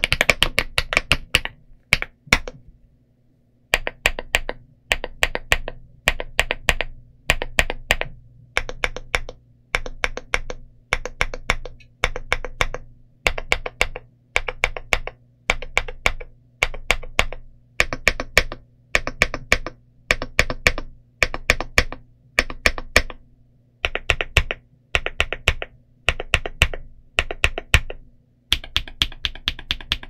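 Mchose GX87 aluminum TKL mechanical keyboard with KTT Vintage White linear switches on a polycarbonate plate and doubleshot PBT Cherry-profile keycaps being typed on. A stretch of typing, a short pause, then quick bursts of repeated keystrokes about once a second, and steady typing again near the end.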